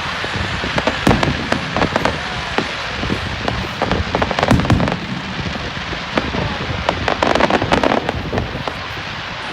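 Fireworks display: a continuous crackle with many sharp bangs, coming in thick clusters about a second in, around four to five seconds in, and again near seven to eight seconds.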